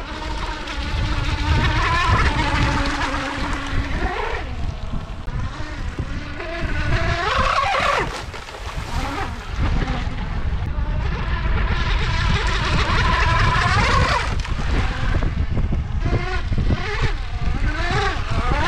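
RC outrigger hydroplane racing boat running at speed, its motor's high, thin whine sweeping up and down in pitch as it makes repeated passes, about every five seconds. A steady low rumble runs underneath.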